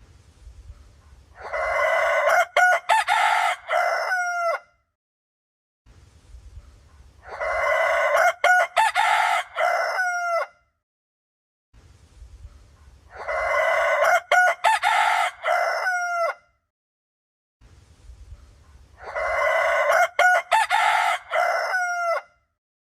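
Rooster crowing four times, about six seconds apart, each a long crow that ends in a drawn-out, wavering tail. The four crows sound alike.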